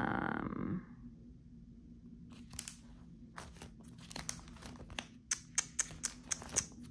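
Paper sticker sheets crinkling and crackling in quick, sharp little clicks as planner stickers are peeled and handled. The crackles get busier in the second half.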